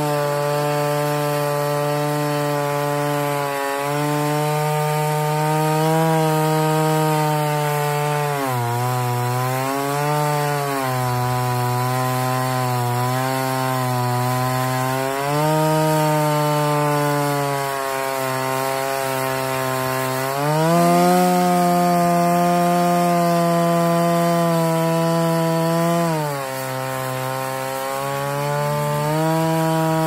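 Husqvarna 395XP two-stroke chainsaw with a 36-inch bar and skip-tooth square-chisel chain, running at full throttle as it rips a long cut down a wide log in an Alaskan chainsaw mill. Its pitch sags and recovers several times as the cutting load changes, with the deepest dips near the middle and near the end.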